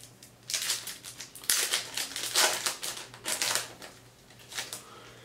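Foil wrapper of a trading-card pack crinkling in several short rustling bursts as it is torn open by hand and the cards are pulled out.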